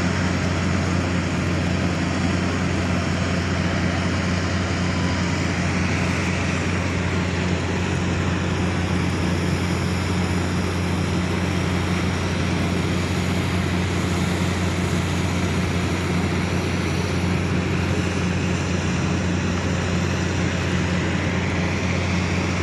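Steady low hum with an even rushing noise over it.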